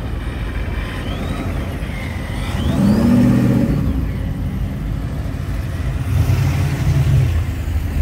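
Muscle car and hot rod engines rumbling at low speed. One revs up about three seconds in, and another engine grows louder near the end.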